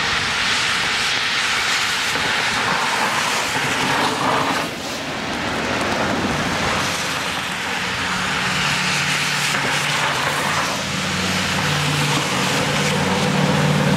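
Freeway traffic on rain-soaked pavement: a steady hiss of tyres spraying through standing water. A low engine hum joins about halfway through as a car draws near.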